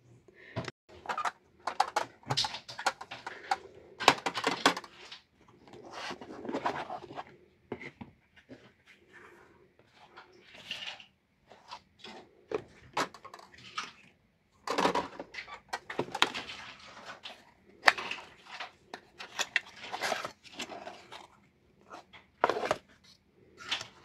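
Clicks, knocks and rustles of pastel boxes being handled on a table: a metal tin with foam trays, cardboard and plastic pastel boxes and a foam-lined case being opened, shifted and set down, in short irregular bursts.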